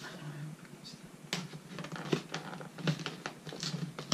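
A cardboard shipping box being handled and opened by hand: irregular light taps, scrapes and clicks, the sharpest about a second in and several more in the second half.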